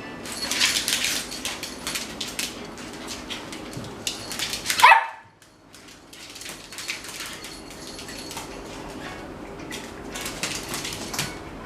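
Dogs barking in short sharp bursts, with one loud yelp falling in pitch about five seconds in, after which the sound briefly cuts out.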